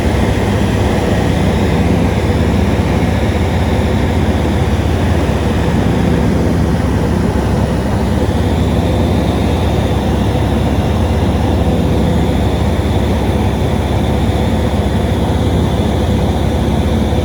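Light aircraft's engine and propeller running as a steady loud drone.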